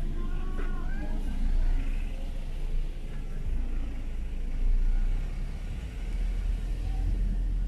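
2018 Ford Ranger pickup driving slowly, its engine and road noise heard from inside the cabin as a steady low rumble.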